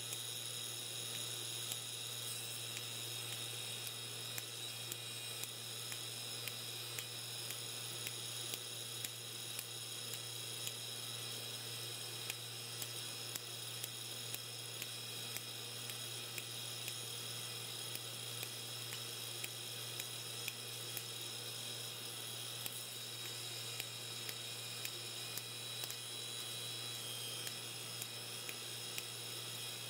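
Homemade spark-erosion (EDM) machine at work: a steady low hum with high electrical whines from the spindle and step-up converter, and short sharp ticks about once or twice a second, the snaps of sparks jumping from the steel drill bit to the razor blade as the cycle repeats.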